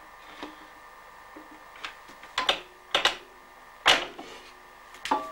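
Irregular sharp knocks and clatter of wooden herring-barrel parts being worked in a cooper's iron machine. A few faint knocks come first, then louder strokes from about halfway, some with a brief ring.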